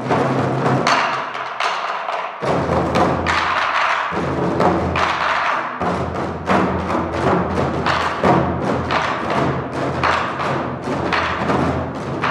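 Korean barrel drums (buk) beaten in a steady rhythm of sharp strikes, about two a second, over sustained accompanying music.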